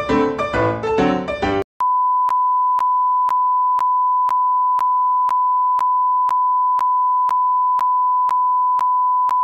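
Piano music that cuts off about one and a half seconds in, then, after a brief gap, a steady 1 kHz test tone of the kind that goes with colour bars, with a faint click about twice a second.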